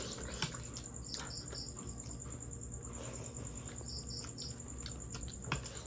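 Insects chirping: a steady high trill, with short chirps in groups of three repeating every few seconds. A few light clinks of spoons against plates come through, the clearest near the end.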